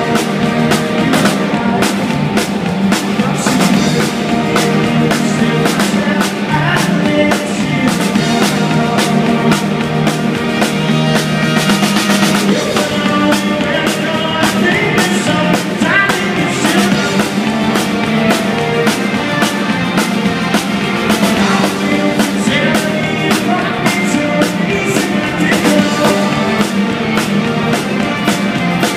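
Live rock band playing loud, with a drum kit keeping a steady beat under electric guitars.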